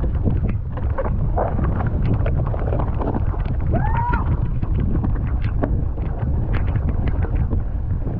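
Wind buffeting the microphone over a low rumble, with frequent clicks and knocks as a mountain bike rattles over rough trail. A short squeal rises and falls about four seconds in.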